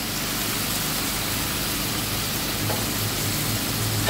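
Raw diced boneless chicken frying in oil in a nonstick pan: a steady sizzle, at first stirred with a silicone spatula. The chicken is just starting to cook and turn white.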